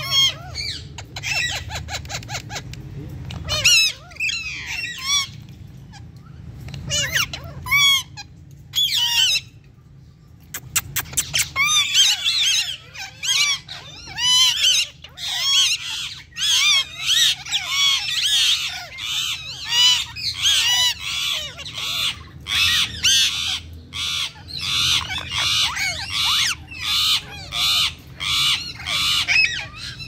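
Pet parrots, Indian ringneck parakeets with cockatiels, calling in runs of short, high squawks and chirps. The calls come in scattered bursts for about the first ten seconds, then become nearly continuous and rapid.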